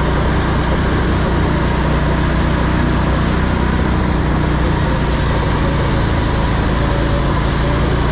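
Vehicle engine running steadily under way, a continuous low drone with road-type noise over it and no change in pitch.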